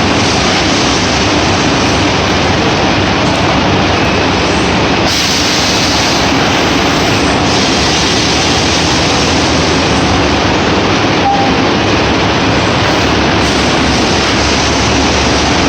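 Pellet packaging machine running: a loud, steady mechanical rumble and rush, with a brighter hiss for about two seconds some five seconds in.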